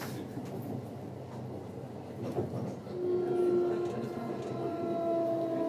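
Kintetsu Series 21 electric train with Mitsubishi IGBT VVVF traction inverter: a low hum of the car, then about three seconds in the inverter's whine of several steady tones comes in and gets louder as the motors take power.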